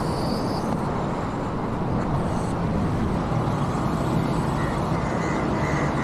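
Skylift truck's engine running steadily, a low, even drone.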